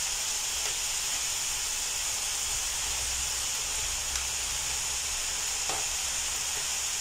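Steady sizzle of chopped vegetables frying in a large pot as rice is tipped in, with a few faint soft ticks.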